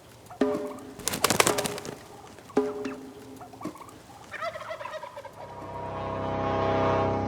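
Wild Merriam's turkey gobbling several times in short rattling bursts. Music swells in over the last couple of seconds.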